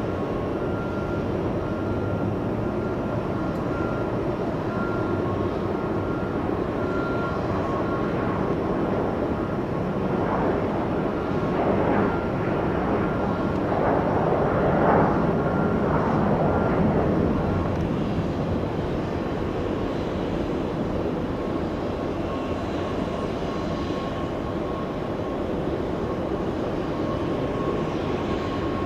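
Jet airliner engines running: a steady rumble with a thin whine, swelling louder for several seconds in the middle and easing off again.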